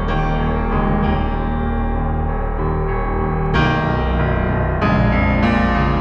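Background piano music, with sustained notes and chords; fresh chords strike about three and a half seconds in and again about a second later.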